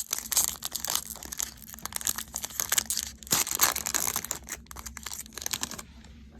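Wrapper of a Bowman baseball card pack being torn open and crumpled, a dense crinkling crackle that stops near the end.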